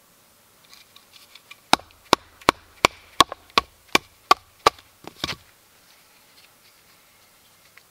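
A knife batoned down through a short log piece with a green wooden baton: about nine sharp knocks, roughly three a second, then a last quick cluster of knocks as a piece of wood splits off.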